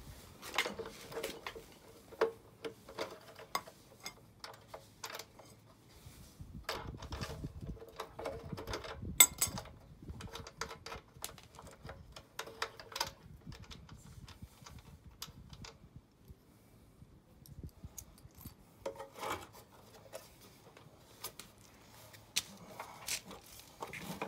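Hand tools and metal parts of an electric scooter's rear end clicking, clinking and scraping in irregular bursts while it is being taken apart, with one sharp knock about nine seconds in and a quieter stretch past the middle.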